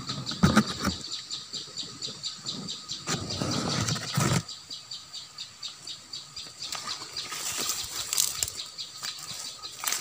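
Leaves and stems rustling as the plants around the nest are handled and brushed past, loudest about half a second in and again from about three to four and a half seconds in. Behind it a steady high ticking goes on, about four pulses a second.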